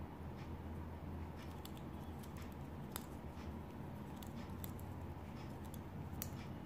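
Faint, irregular small clicks and rustles of a tatting shuttle and its thread being handled as double stitches are worked, over a steady low hum.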